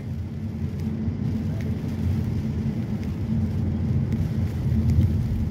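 Low steady rumble of a car heard from inside its cabin, with a steady hum underneath.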